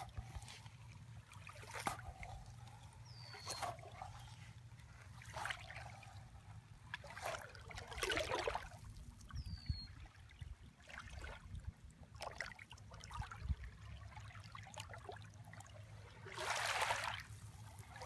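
Small waves lapping and trickling at the edge of a sandy beach, soft irregular swishes with a louder wash near the end, over a low steady rumble. Two brief high falling chirps sound, a few seconds apart.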